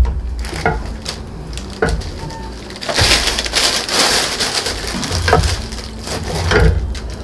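A paper bag rustles as a crusty loaf of bread is pulled out of it. Then a knife saws through the bread's crust in a few crackling, crunchy strokes near the end.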